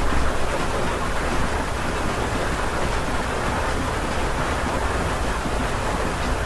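Steady rain heard from inside a house, an even hiss with a low rumble beneath it.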